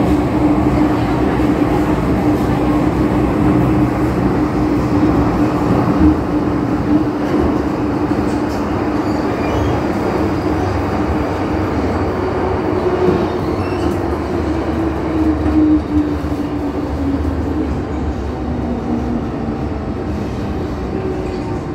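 MTR M-Train electric multiple unit running, heard inside the passenger car: steady rumble of wheels on rail with a traction-motor tone. In the last several seconds the motor tone slides down in pitch as the train brakes into a station.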